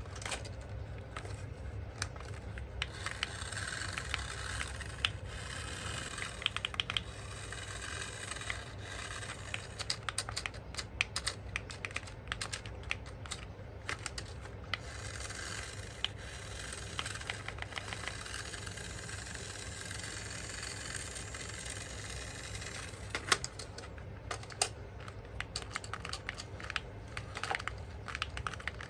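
Hands handling toy parts and packaging: irregular light clicks, taps and rubbing over a steady low hum.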